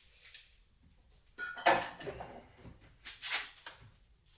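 Two short hissing bursts of aerosol WD-40 spray, about a second and a half apart, lubricating a stuck thermostat water neck.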